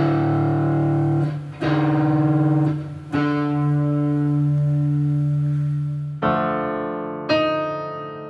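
Fender Telecaster electric guitar playing three sustained single notes, the last held about three seconds. Then, about six seconds in, a digital piano keyboard plays two notes about a second apart, each fading after its strike.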